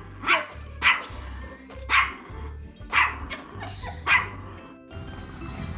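A small Pomeranian barking up at a person in short, sharp yips, five of them about a second apart, which stop a little before the end. Background music plays underneath.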